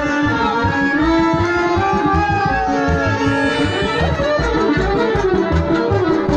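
Live Balkan wedding band playing a brisk folk tune: violin carrying the melody over accordion, with a steady low beat. About two to three seconds in, one line slides down in pitch.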